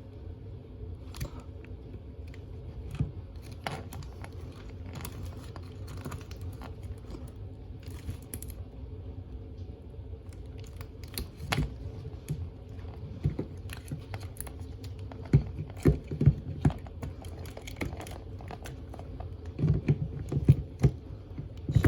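Plastic clicks and knocks as a new dishwasher drain pump is handled and pushed into its plastic sump housing, sparse at first and then louder and closer together in the second half. A steady low hum runs underneath.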